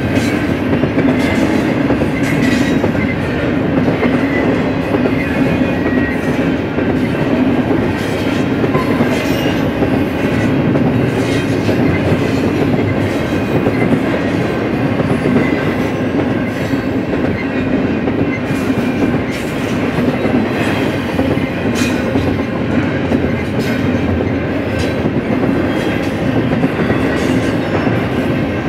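BNSF freight train rolling steadily past, a continuous loud rumble with the wheels clicking sharply over the rails throughout.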